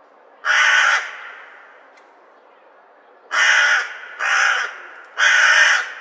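Crow cawing: one harsh caw, then after a pause of about two seconds a quick run of three more caws. Each caw lasts about half a second and trails off in a short echo.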